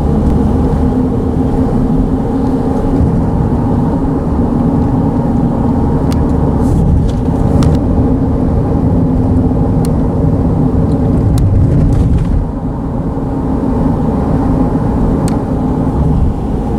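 Steady, loud low vehicle rumble with a humming drone over it and a few light clicks; it eases off a little about twelve seconds in.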